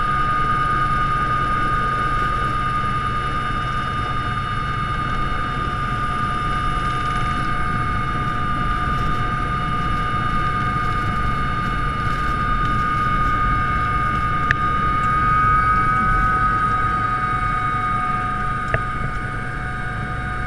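Sikorsky S-76 helicopter heard from inside the cockpit during landing: the twin turbine engines whine steadily over the constant low rotor rumble. Two sharp clicks come about fourteen and nineteen seconds in.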